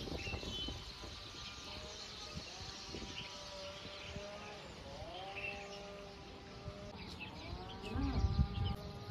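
Soft instrumental background music: a melody of long held notes that slide smoothly from one pitch to the next. Low rumbling comes in near the end.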